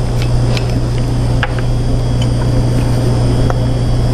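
Steady low mechanical hum of running lab equipment, with a few faint clicks from a plastic screw cap being twisted off a bottle.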